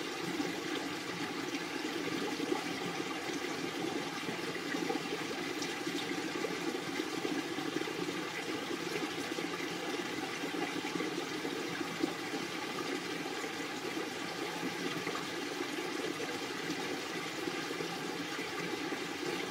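Steady rushing background noise, even and unbroken.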